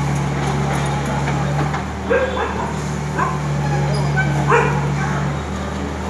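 Tata Hitachi excavator's diesel engine running with a steady low hum. A few short, sharp calls stand out about two to five seconds in.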